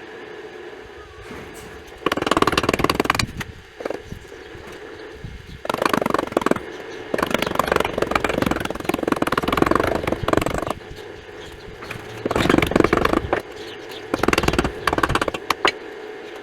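Ball-peen hammer tapping rapidly on gasket material laid over a metal flange, cutting a new gasket around its edges, in four spells of quick taps, the longest about five seconds.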